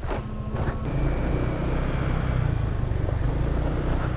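Motorcycle engine running as the bike rides off at low speed, a steady low rumble that grows a little louder about a second in.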